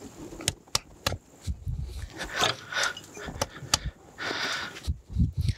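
Scattered sharp clicks and knocks, a few low thuds and short stretches of scraping as the locomotive's steam chest is worked down by hand over its studs onto the cylinder.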